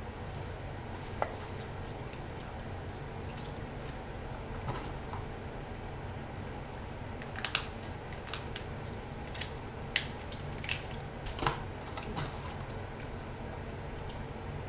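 Kitchen shears snipping and cracking through snow crab leg shells: a run of sharp clicks and crunches in the second half, over a steady low hum.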